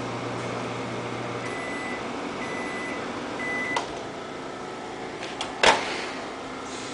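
Microwave oven finishing its cycle: the running hum cuts off about a second and a half in, followed by three long beeps. A click follows, and near the end a sharp clunk, the loudest sound, as of the door latch being released.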